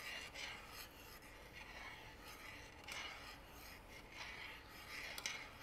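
Metal ladle stirring a cream sauce with melting butter around a stainless steel pot, scraping the pot in repeated faint swishing strokes.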